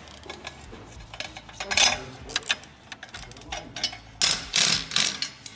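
Irregular metal clinks and scrapes of a wrench being worked onto an exhaust manifold flange nut, in two short clusters.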